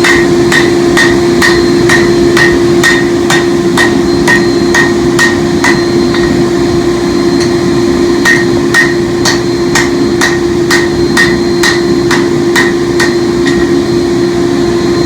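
Hammer blows on hot 4142 chromoly steel over an anvil, about two a second, each with a short ringing note, as the tomahawk blade is spread into its fan shape. A steady hum runs underneath, and the blows stop about a second before the end.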